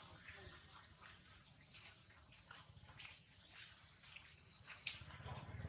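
Faint, steady, high-pitched insect chorus, with light rustling and one sharp click about five seconds in.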